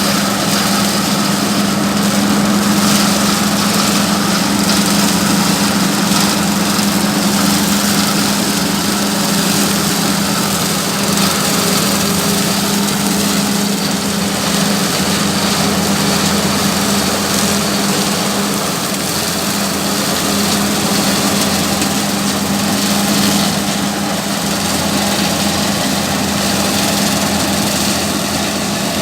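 An engine running steadily at an even speed, with a constant droning hum.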